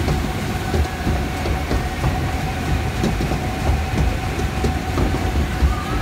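Water-ride boat being carried up a lift hill: the lift conveyor gives a steady clattering rumble with a faint constant whine.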